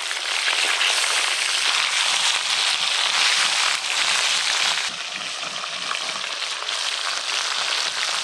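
Rohu fish pieces, coated in salt and turmeric, sizzling and crackling in hot oil in a metal wok while being turned with a metal spatula. The sizzle drops a little about five seconds in.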